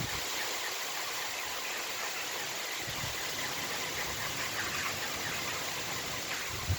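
Steady rain falling as a thundery shower passes: an even hiss with fine patter, and a couple of brief low rumbles.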